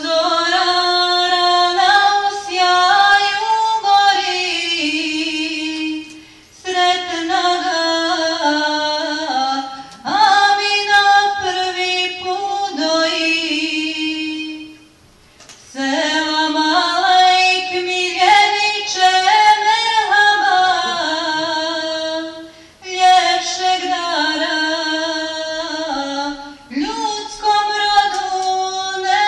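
Unaccompanied solo voice chanting a melismatic religious melody in long, gliding phrases, with short breaks for breath between them.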